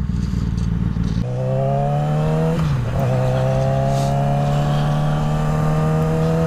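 Yamaha R6 inline-four engine accelerating: a low rumble and rush of wind for about the first second, then a slowly rising engine note, a quick upshift about two and a half seconds in, and a long, steadily rising pull in the next gear.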